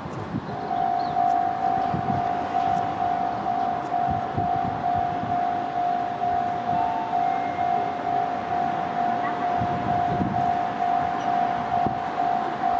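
Electronic warning bell of a Japanese railway level crossing, one pitched tone pulsing a few times a second. It starts about half a second in and keeps ringing, signalling an approaching train.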